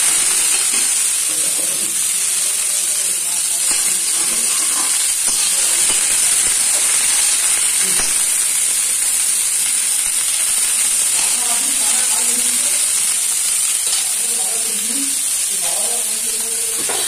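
Cauliflower florets sizzling steadily as they fry in oil in a steel kadai, stirred with a metal spatula.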